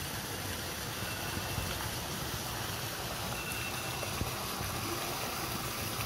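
Steady rushing noise of water pouring from a pool's wall spout into the pool. Two faint, brief high tones come through about a second in and again past the middle.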